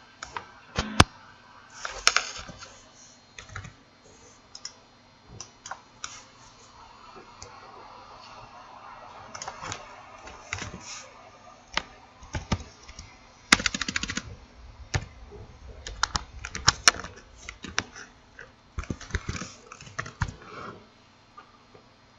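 Typing on a computer keyboard in irregular bursts of keystrokes, with scattered single clicks; a fast run of keys comes a little past halfway.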